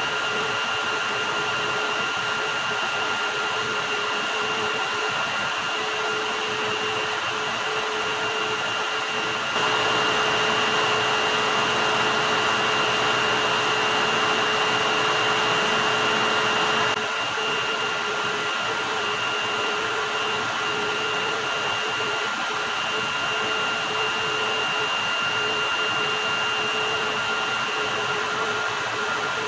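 Xiaomi Shunzao Z11 cordless stick vacuum running steadily: a constant motor whine over a rushing airflow hiss. It gets louder for several seconds in the middle.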